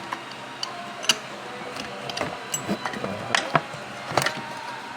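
Tools and engine parts being handled: a handful of sharp, irregular clicks and knocks spread over a few seconds.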